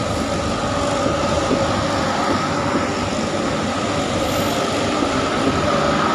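KAI passenger train coaches rolling past at close range: a steady rumble and clatter of wheels on rail, with a faint steady whine above it.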